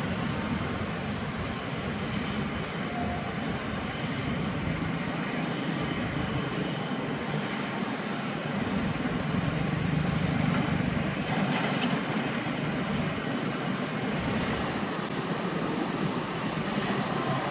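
Hydraulic crawler excavators' diesel engines running steadily at work, a low drone that grows a little louder about ten seconds in.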